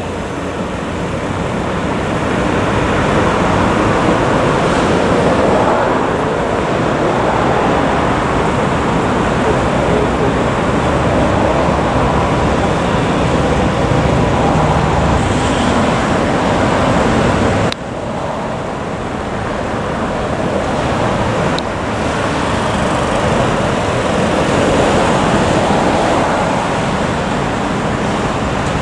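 Steady city road traffic noise: cars and trucks running and passing, with a short dip about eighteen seconds in.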